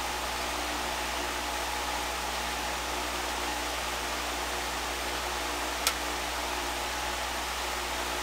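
Steady background hiss with a low, even hum, broken once by a single sharp click about six seconds in.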